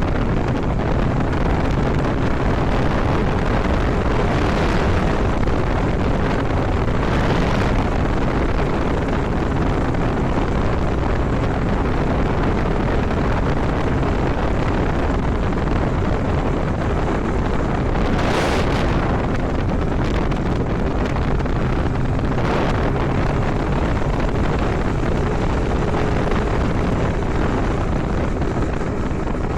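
IZh Jupiter 5's two-cylinder two-stroke engine running steadily under way, heavy wind rushing over the microphone and swelling in a few louder gusts. The owner hears a knocking and ringing from this engine that he judges bad enough to strip it down and inspect the parts.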